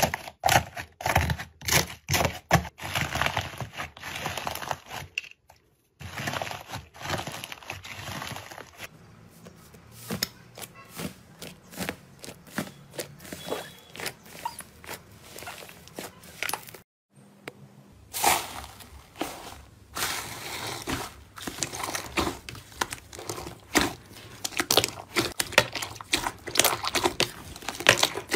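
Hands pressing, tearing and kneading slime: dense crackling and crunching, quieter in the middle, cutting out briefly twice.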